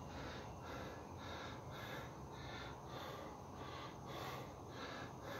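A man breathing hard and fast from exertion, in quick rhythmic puffs of about two to three a second.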